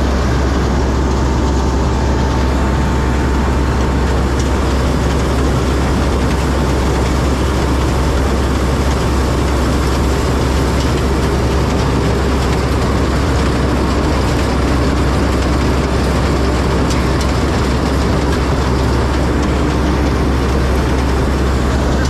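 Rice combine harvester running steadily while cutting paddy: a loud, even engine drone, heard from the machine's open driver's seat.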